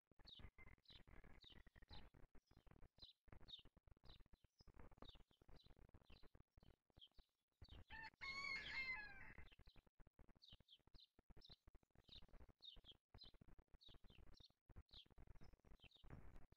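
Faint bird chirping, a short high call repeated about twice a second. About halfway through, a rooster crows once in the distance; this is the loudest sound.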